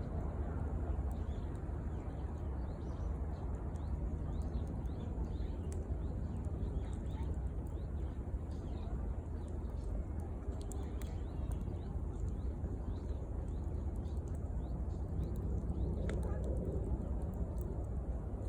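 Wood fire burning outdoors: a steady low rumbling hiss with a few faint crackles and pops, while small birds chirp faintly in the background.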